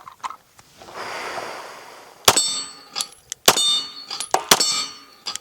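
Tisas PX9 9mm pistol fired three times about a second apart, each hit setting a steel hostage plate ringing. The hits confirm the optic kept its zero after being dropped. A brief rushing noise comes about a second in, before the shots.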